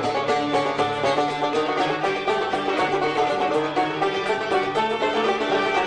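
Instrumental interlude of Algerian chaabi music between sung verses: a plucked-string ensemble led by an oud plays a quick run of notes.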